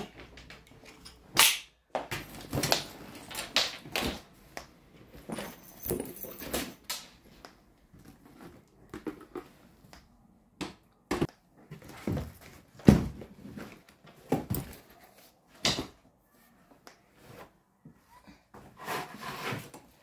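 Clothes and handbags being handled and cleared out of a wardrobe: fabric rustling with irregular knocks and thumps, the loudest a thump about 13 seconds in.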